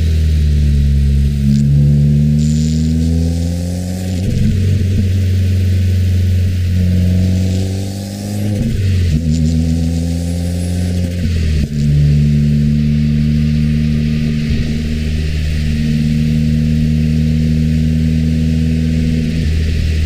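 2015 Subaru WRX's turbocharged flat-four with a muffler-delete axle-back exhaust, driving on the road. The engine note climbs twice and drops sharply at each gear change, about four and nine seconds in. After another change near twelve seconds it settles into a steady drone.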